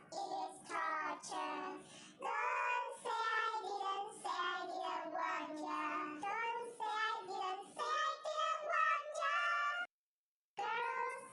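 A high-pitched voice singing a melody in short, quick notes. It cuts out suddenly for about half a second near the end, then carries on.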